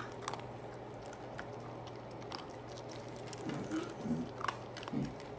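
Small dog chewing dry kibble, with scattered crisp crunches and clicks of kibble on a wooden tabletop, over a low steady hum.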